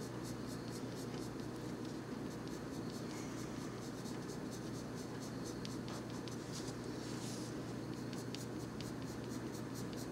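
Colored pencil scratching lightly on paper in quick, even little strokes as a basic layer of color goes down.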